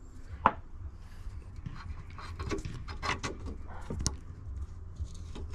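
Small clicks and knocks of metal lathe tailstock parts being handled, the sharpest about half a second in, over a low steady hum.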